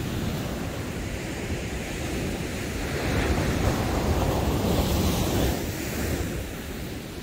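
Surf breaking and washing up the beach, with wind buffeting the microphone. The wash swells louder about halfway through, then eases.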